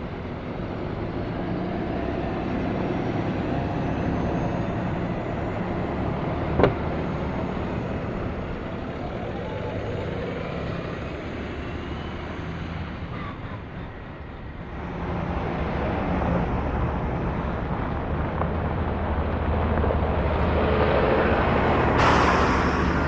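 Street traffic on a snowy city road: engine hum and tyre noise of passing cars and trucks swelling and fading, with a single sharp click about a third of the way in and a sudden louder hiss from a passing vehicle near the end.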